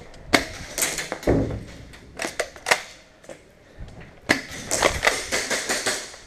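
Irregular sharp clicks and knocks of airsoft play: shots from airsoft guns and the clatter of the player's gear as he moves. They come in two busy stretches with a quieter gap in the middle.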